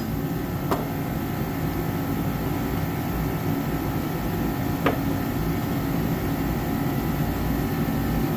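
Steady drone of a garage space heater running, with two short clicks, one just under a second in and one about five seconds in, as wrenches are pushed into a wrench organizer.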